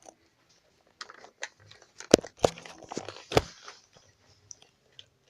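A few sharp knocks and clicks, the loudest about two seconds in, again about half a second later and near three and a half seconds, with softer rustling and scraping between.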